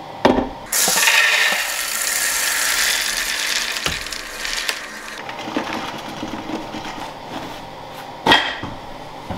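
Water and soaked popcorn kernels poured from a stainless steel pot into a sifter over a plastic tub: a rushing splash for about four seconds, then quieter trickling and rattling as the kernels drain. There is a knock at the very start and another near the end.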